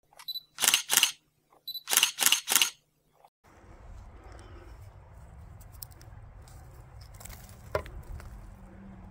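Camera shutter sound effect: a short focus beep and two shutter clicks, then another beep and three quick clicks, over silence. Then faint outdoor rustling of hands working in dirt, with one sharp knock near the end.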